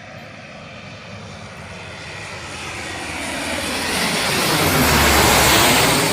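Lockheed C-130J-30 Super Hercules on landing approach passing low overhead, its four turboprop engines growing steadily louder to a peak about five seconds in, then starting to fade.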